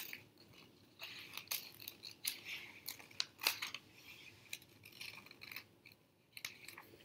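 Scissors cutting through a glossy magazine page: a run of uneven snips, with the paper rustling as it is turned.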